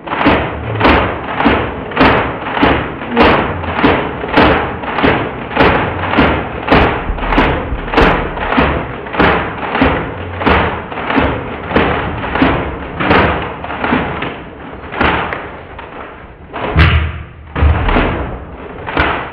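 Loud, even thumping beat, about five thumps every three seconds, with a few heavier, deeper hits near the end.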